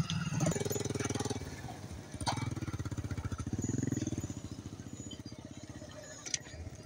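A motorcycle engine running at low speed, its rapid firing pulses louder in the first half and easing off toward the end, with a sharp click about two seconds in.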